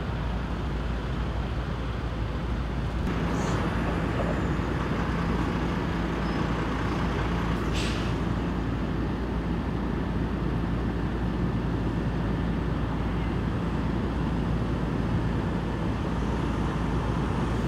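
Steady traffic rumble. From about three seconds in there is a steady low hum of idling fire engines, with a short hiss about eight seconds in.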